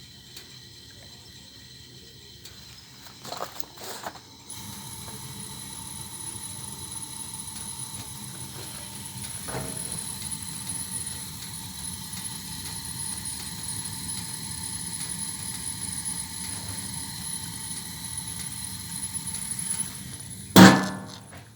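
AMOS gas boiler: a few clicks, then about four seconds in a low rushing sound with a thin, steady, high-pitched whistle over it, a whistle whose cause the owner cannot find. One loud knock near the end.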